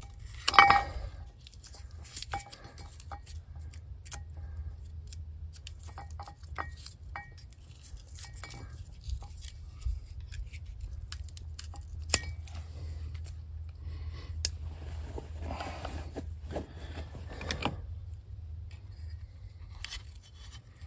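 Hands working on small electrical parts: scattered clicks, light rattles and rustling, over a steady low hum.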